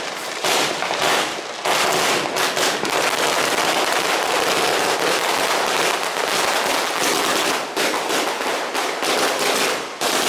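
Diwali firecrackers going off: a dense, unbroken run of crackling pops and bangs, with a brief lull about a second and a half in.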